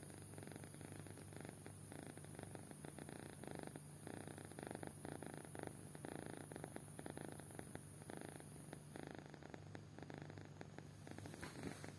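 A sleeping kitten snoring softly: a faint, rumbling snore that swells and fades with each breath, about every second and a half.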